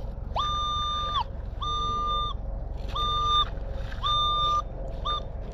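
Nokta Legend metal detector beeping a high tone through its speaker five times, the last one short, as the coil sweeps back and forth over a buried target. The tone signals a non-ferrous target with an ID in the high 70s, which the detectorist takes for a coin.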